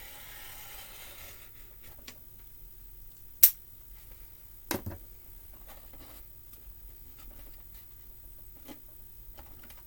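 Gasket paper being trimmed and handled on a workbench: a rustle at the start, then scattered small clicks, one sharp loud click about three and a half seconds in and a duller knock about a second later.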